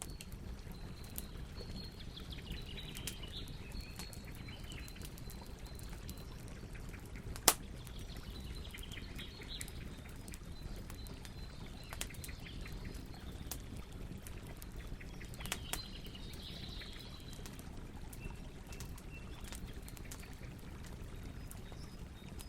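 Campfire burning with a steady low rush and scattered crackles, and one sharp pop about seven and a half seconds in. Birds chirp faintly in the background in several short spells.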